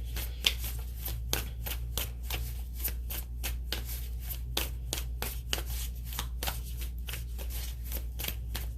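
A tarot deck being shuffled by hand: a quick, fairly even run of card flicks and slaps, several a second, over a steady low hum.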